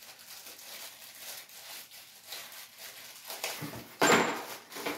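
Faint rustling and light handling noises as a faucet and its packaging are unwrapped, with a louder rustle about four seconds in.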